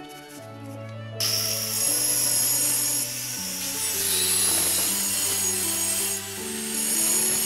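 Background music with a bass line moving in sustained steps; a brighter, hissing layer comes in about a second in.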